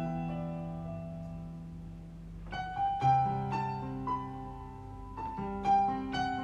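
Soft solo piano music: a held chord fading out, then slow single notes and chords struck about one or two a second.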